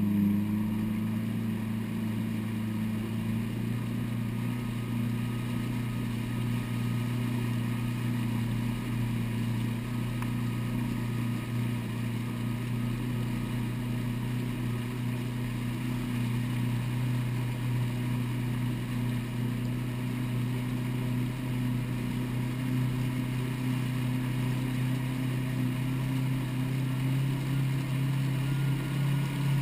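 Jet ski engine running steadily at low, slow-cruising speed, a constant low drone heard from the handlebars. The pitch settles right at the start after the throttle is eased back, and rises slightly near the end.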